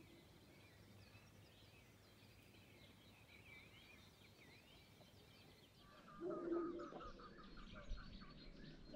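Faint birdsong: thin chirps and short gliding whistles. About six seconds in, a louder bird call takes over, a rapid run of repeated notes over a lower note.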